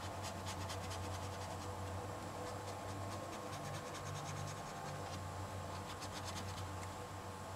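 Wax crayon scratching across sketchbook paper in rapid, repeated back-and-forth colouring strokes, over a steady low hum.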